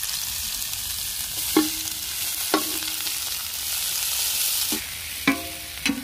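Sliced onions and green chillies sizzling in hot groundnut oil in an iron kadai, a steady hiss. A perforated steel spatula strikes the pan four times as they are stirred, each strike ringing briefly.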